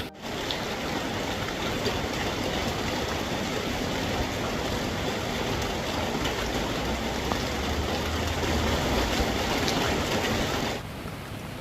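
Fast-flowing floodwater rushing steadily, a dense even noise that drops suddenly to a quieter hiss near the end.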